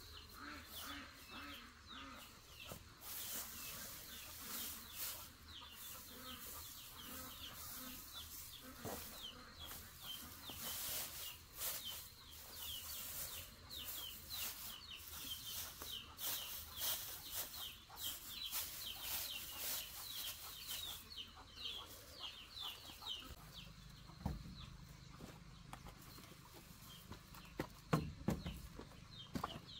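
Chickens clucking and chirping in a long run of short, quick falling calls, over the crackle of dry straw being handled. A couple of low thumps near the end.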